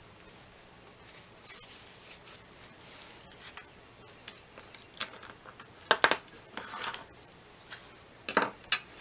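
Small hard objects being handled on a work surface: scattered clicks and rustles, with a few sharper clacks about six seconds in and a quick cluster of them near the end.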